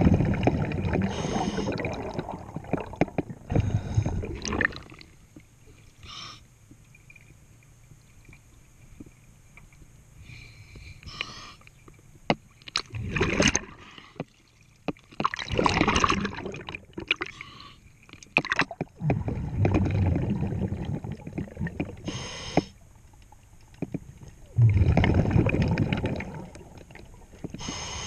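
Diver breathing through a regulator underwater: a short hiss on each inhale, then a loud rush of exhaust bubbles lasting a few seconds, repeated over several breaths with a quieter pause in the middle.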